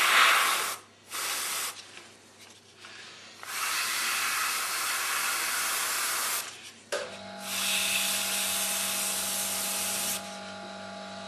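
Airbrush spraying paint past a paper mask in bursts of hiss: two short bursts near the start, then two longer ones of about three seconds each. A steady low hum comes in about seven seconds in.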